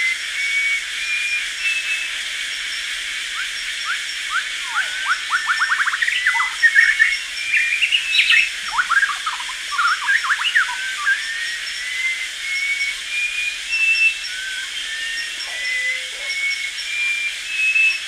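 Early-morning rainforest ambience: birds calling over a steady high insect drone. Clear whistled notes step upward in pitch near the start and again in the second half, and a dense run of quick chirps and sweeping calls fills the middle.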